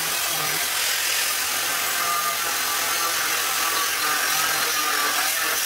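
Electric angle grinder cutting into steel angle iron: a steady whine over a harsh, continuous grinding hiss.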